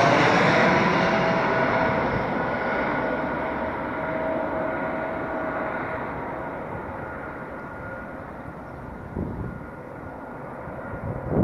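Airbus A319 jet engines fading away after passing low overhead on approach: a steady jet noise with a couple of steady whining tones that loses its hiss and grows quieter. Near the end come a few short swishing bursts, the sound of the aircraft's wake vortices.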